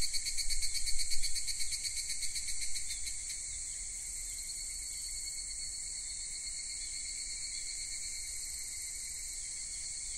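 A chorus of insects trilling, crickets by the sound of it. A fast, pulsing call is louder for the first three seconds, then eases into a steady high trill.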